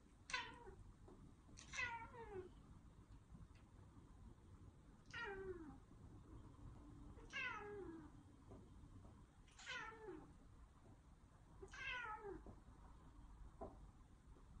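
A domestic cat meowing six times at intervals of about two seconds, each meow short and falling in pitch.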